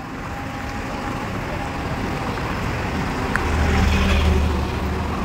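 Heavy diesel engine of a mobile crane running, with its deep hum swelling louder for about a second past the middle, as it stands ready to lift a concrete bridge girder. A single faint click a little after three seconds.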